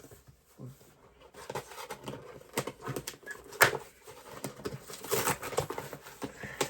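Cardboard and plastic toy packaging rustling and clicking as a doll stuck in its box is tugged and worked at, with one sharp click about three and a half seconds in.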